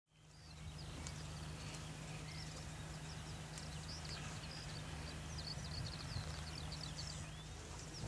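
Steady low hum of a tractor-drawn potato harvester running, fading in at the start. Small birds chirp over it in quick runs through the second half.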